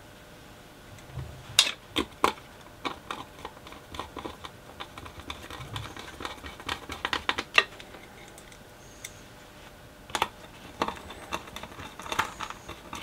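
Screwdriver driving screws into a switch-mode power supply's circuit board and sheet-metal case, making irregular small clicks and taps, with a few sharper clicks among them.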